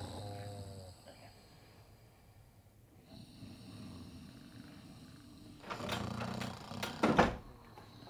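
A man snoring heavily: a wavering snore at the start, a quieter drawn breath, then a louder, rasping snore about six to seven and a half seconds in.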